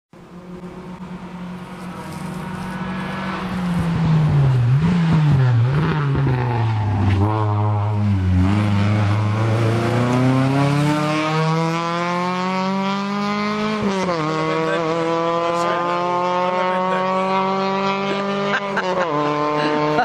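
Rally car engine at full stage pace. The revs fall and rise through downshifts into a slow bend, then the engine pulls hard with a long rising pitch, shifting up about two-thirds of the way through and again near the end.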